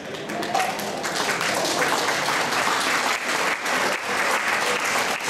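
Audience applauding, a dense steady clapping that swells up in the first half second.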